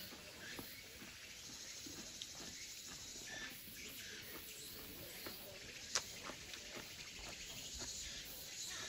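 Faint mountainside ambience of insects buzzing in the forest, with a single sharp click about six seconds in.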